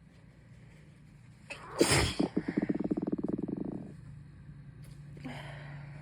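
A woman with a feverish, congested cold sneezes once, hard and messy, about two seconds in. The sneeze trails into a croaky, rattling breath out for about two seconds. A noisy breath in comes near the end.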